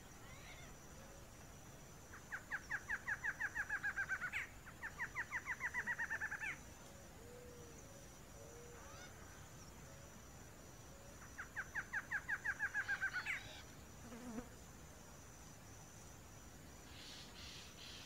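Male barred antshrike singing three songs, each a fast, even series of notes lasting about two seconds that drops slightly in pitch and ends in a sharper, higher note. The first two come back to back, and the third follows about five seconds later. Behind them runs a faint, steady, high-pitched hum.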